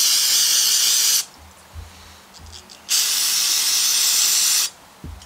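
Aerosol can spraying cleaner through its straw into a small-engine carburetor in two hissing bursts. The first stops about a second in; the second starts about three seconds in and lasts nearly two seconds.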